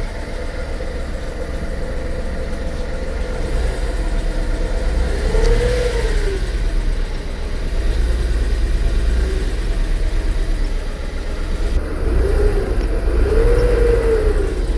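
Car engine running, with a few brief revs that rise and fall in pitch.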